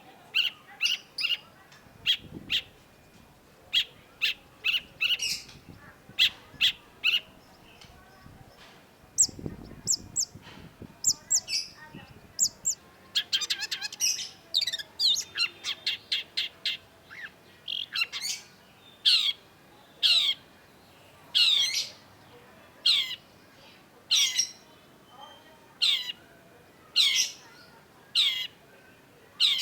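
Long-tailed shrike calling: clusters of short harsh notes, then a quick run of rapid varied chattering notes, then a steady series of calls about once a second, each sweeping downward in pitch.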